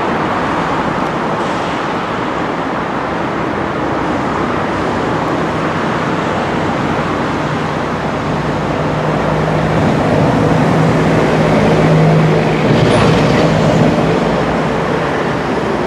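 Steady traffic noise, with a low hum that grows louder about ten to twelve seconds in and then falls away.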